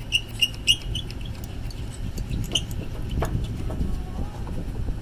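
Sharp metallic clicks and clinks from a weight-distribution hitch's spring bar and chain as the bar is worked loose, quickly at about three a second near the start, then scattered, with a thump about three seconds in. A steady low engine rumble runs underneath.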